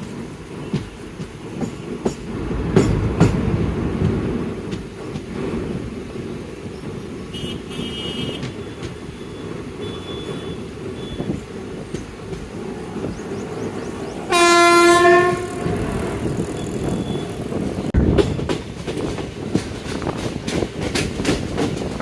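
Intercity express train running, heard from inside a passenger coach: steady wheel and coach rumble with clicks over the rail joints. About two-thirds of the way through, the locomotive's horn sounds one loud blast of about a second.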